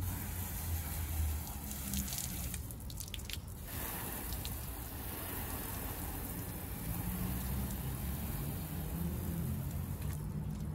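Water running, splashing and dripping during a hand car wash, with a few short clicks about three seconds in.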